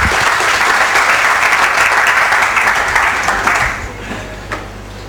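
An audience applauding steadily, the clapping dying away about four seconds in.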